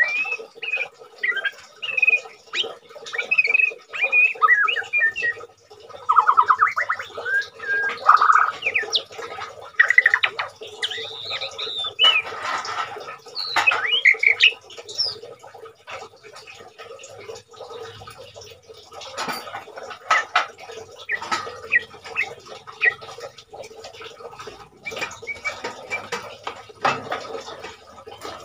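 White-rumped shama (murai batu) in molt, singing a varied song of whistles, chirps and harsher notes. It is busiest in the first half and gives shorter, sparser phrases later, over a faint steady hum.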